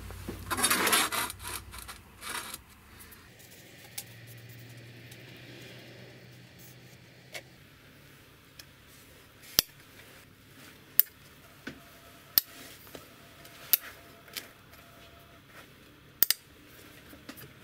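Small round magnets snapping one by one onto a flat steel knife blank, five sharp clicks about a second and a half apart in the second half, the last a quick double. In the first two seconds there is a louder scraping and rustling of handling on the wooden bench.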